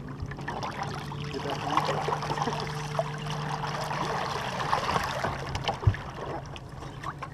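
Water splashing and trickling against a small boat, over a steady low hum, with one sharp knock about six seconds in.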